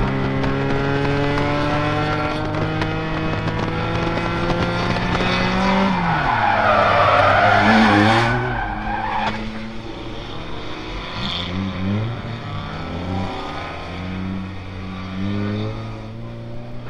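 Race car engine heard from inside the cabin under load, its pitch climbing steadily, then dropping about six seconds in as the tyres squeal and skid loudly for about three seconds while the car spins. Afterwards the engine runs lower, with a few short revs.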